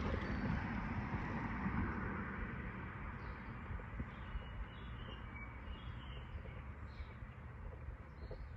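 Outdoor background noise, a steady rush that eases slightly, with a few faint high bird chirps in the second half.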